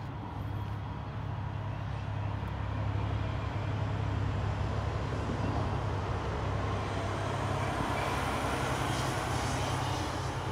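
Distant engine noise: a low steady hum that swells through the middle and eases off near the end.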